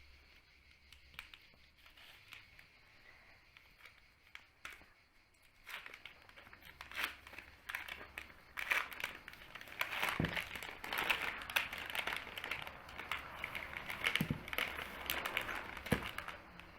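Snack packaging being handled and torn open: a few scattered crackles, then dense crinkling and tearing from about six seconds in, with a few soft thumps.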